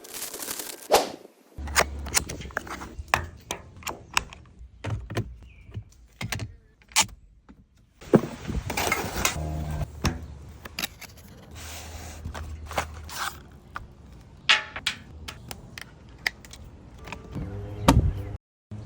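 Small hard objects being handled: a long run of irregular clicks, knocks and scrapes, with a brief pitched sound near the end.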